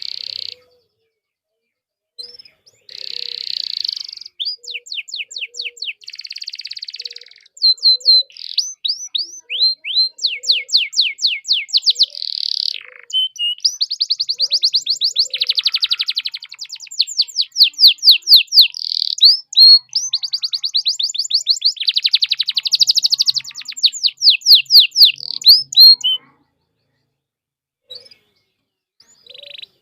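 Canary singing a long, loud song of rapid trills, each phrase a fast run of repeated sweeping notes with brief breaks between phrases; it falls silent a few seconds before the end. This is a full 'gacor' canary song of the kind played as bait to set other canaries singing.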